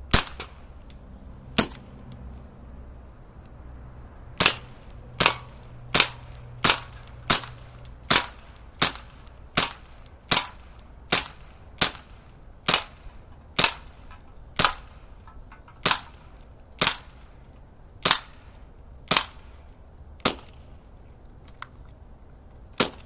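A low-powered gun firing about twenty-two sharp single shots, emptying its magazine. Two shots come a second and a half apart, then after a pause the rest follow in a steady run of roughly one shot a second.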